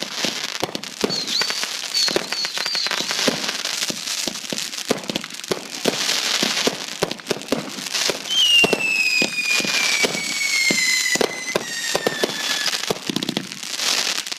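Consumer fireworks going off in quick succession: many sharp bangs and crackling, with short high chirps early on and, from about eight seconds in, a long high whistle slowly falling in pitch.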